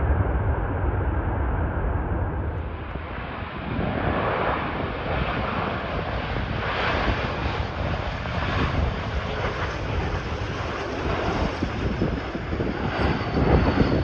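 Twin rear-mounted turbofan engines (Rolls-Royce AE 3007) of an Embraer 145 regional jet on final approach, a steady jet roar that swells slightly as it nears, with a faint high whine near the end. Gusty wind buffets the microphone throughout, heaviest as a low rumble in the first couple of seconds.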